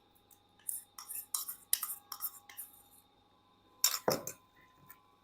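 Chicken being mixed with spices in a dish: a run of irregular rustling and scraping strokes, then a louder clatter about four seconds in.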